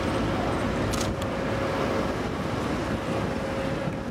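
Ship's crane machinery running steadily under the load of a slung railcar, with a constant whine over the noise. A couple of sharp clicks come about a second in.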